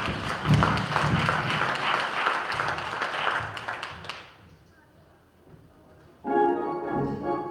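Congregation applauding for about four seconds, dying away. Music starts about six seconds in.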